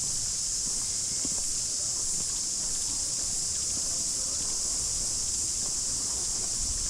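A steady, high-pitched chorus of cicadas, with soft footsteps on a garden path.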